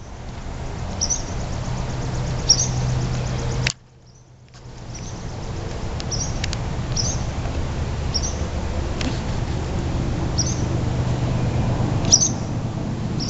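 Barn swallows giving short, sharp chirps every second or so, over a steady low rumble. Everything cuts out briefly about four seconds in.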